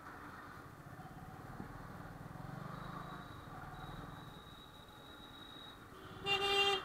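Motorcycle engine running quietly at low speed, its rumble swelling a little and easing off. A brief loud steady pitched tone sounds near the end.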